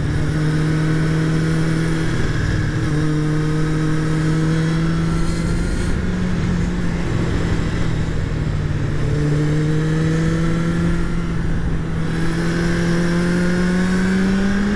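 Kawasaki Z1000's inline-four engine pulling at fairly steady revs while riding, under a constant rush of wind noise. The revs climb steadily near the end.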